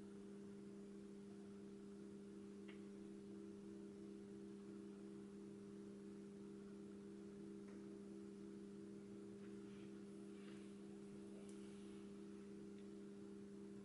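Near silence with a steady electrical hum: two constant low tones and a fainter pulsing tone between them, with a few faint ticks here and there.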